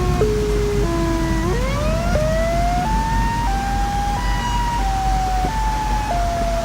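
An electronic siren-like tone that holds a note for about half a second, then steps or glides to the next, climbing higher about a second and a half in before wandering back down a little. A steady low rumble runs underneath.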